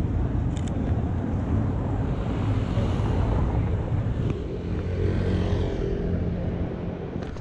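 City street ambience with a steady low rumble of road traffic; the traffic noise swells and fades in the middle, as a vehicle passes.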